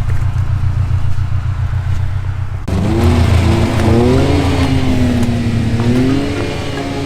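Car engine running and revving, its pitch rising and falling as the throttle changes. The sound is a muffled low rumble at first, then turns suddenly brighter and fuller a little under three seconds in.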